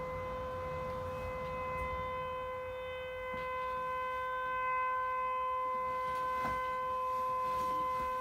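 Tornado siren sound played back from a device, one steady tone that holds its pitch without rising or falling.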